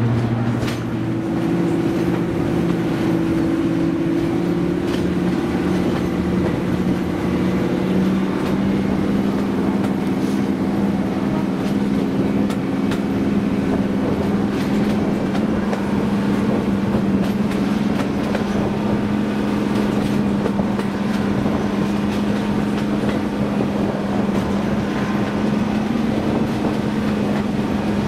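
Diesel locomotive engine running under power, a loud steady drone whose note shifts in the first few seconds and then holds level.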